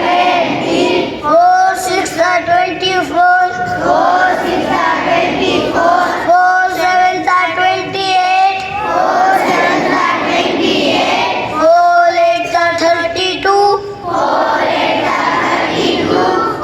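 A group of young children singing together. Clear lines from a few voices alternate every few seconds with the fuller sound of the whole group.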